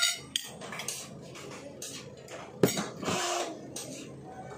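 Metal fork clinking and scraping against a ceramic plate of noodles in scattered sharp clicks, with one louder clatter about two-thirds of the way through as the fork is set down on the plate, followed by a short burst of noise.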